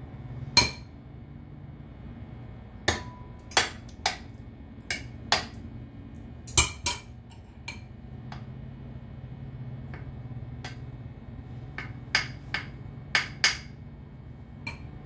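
A metal spoon clinking against glass dishes while a casserole is layered: about eighteen sharp, irregular clinks, some in quick pairs and some with a brief ring, over a steady low hum.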